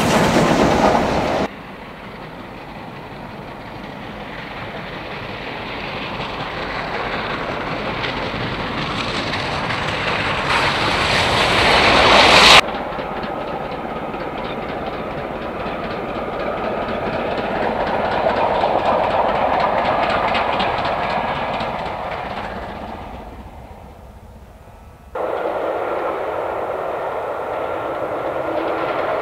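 Steam locomotive trains running past on the rails in a series of separate clips. The sound builds as a train approaches, then fades as it draws away, and it changes abruptly three times where one clip cuts to the next.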